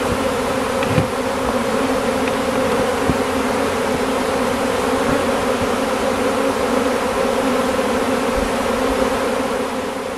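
Honeybee swarm buzzing: a dense, steady hum of many bees, fading out near the end.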